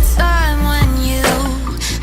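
Background music with deep bass and drum hits.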